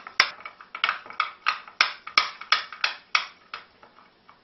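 A spoon clinking against a small glass bowl while stirring a dry spice rub: a run of quick clicks, about three or four a second, thinning out near the end.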